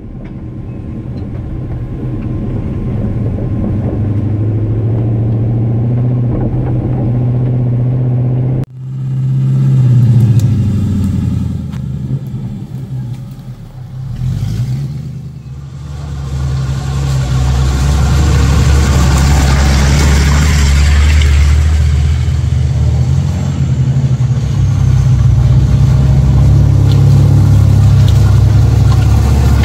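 Off-road 4x4 engine running under load and revving, its pitch rising and falling. The sound breaks off abruptly about nine seconds in, and a rush of hissing noise joins the engine a few seconds later, loudest around twenty seconds in.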